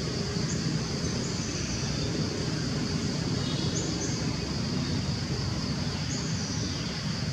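Outdoor woodland ambience: a steady low rumble under a constant high-pitched hiss, with short rising bird chirps four times.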